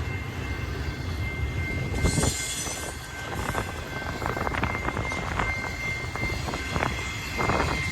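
Intermodal freight train cars rolling past, with a steady low rumble, scattered knocks from the wheels and a thin steady high tone, while wind buffets the microphone.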